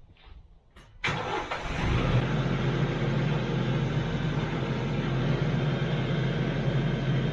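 TYM T574 compact tractor's diesel engine starting up suddenly about a second in and settling into a steady idle.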